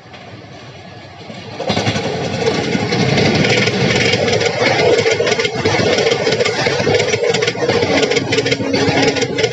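Indian Railways passenger train hauled by an electric locomotive passing close at speed. The locomotive's arrival brings a sudden loud rush about two seconds in, followed by the coaches rolling by with a rapid clatter of wheels over the rails and a steady hum.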